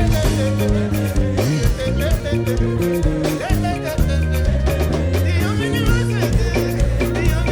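Live upbeat praise music with a band of drums, bass and guitar and sung vocals, a steady danceable beat.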